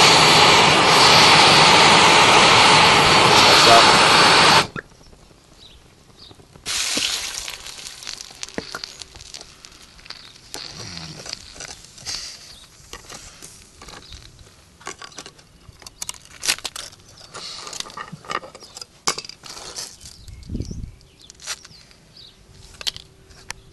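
Handheld gas blowtorch flame roaring steadily as it burns a DVD, cutting off suddenly about five seconds in. After that come quieter scattered clicks and scrapes as a tool prods the melted disc on a stone paver.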